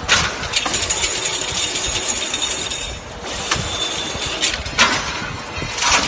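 Automatic crimped wire mesh weaving machine running: a steady mechanical clatter broken by repeated sharp metallic strikes, a second or so apart.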